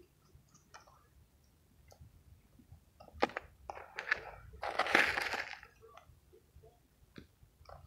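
Mothballs and mothball powder crunching and crackling as fingers squeeze and rub them in a plastic tub. Scattered light clicks build to a longer, louder crunch about halfway through.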